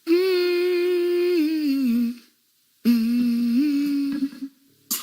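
A person humming two long held notes with no words, the first sliding down in pitch near its end, the second stepping up partway through, with a short pause between them.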